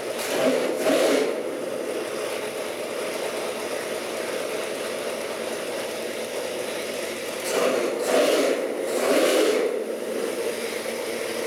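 Pontiac 461 cubic-inch stroker V8, tuned down with a milder camshaft, running at a steady idle. It is revved briefly just at the start and twice more near the end.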